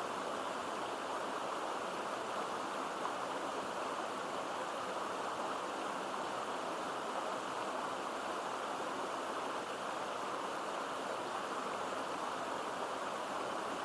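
Mountain stream babbling steadily, an even, unbroken rush of flowing water.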